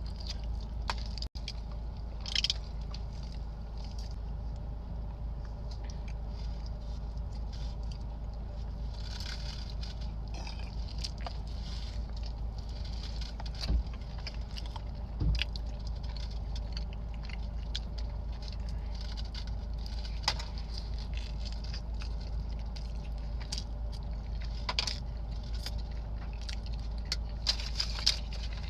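Close-miked eating sounds from someone eating a Chipotle burrito: soft chewing with small wet clicks and crinkles, a few sharper ones near the middle and end, over a steady low hum.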